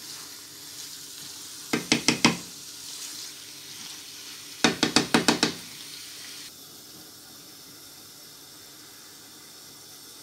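Boneless chicken pieces sizzling in a nonstick frying pan, with two quick runs of knocks from a wooden spatula tapped against the pan, about five strikes and then about six. The sizzle drops to a quieter, muffled hiss partway through, as the pan is covered with a glass lid.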